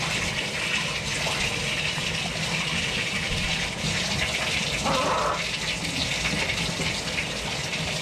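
Bathtub faucet running steadily, its stream splashing over a hen held under it to be washed.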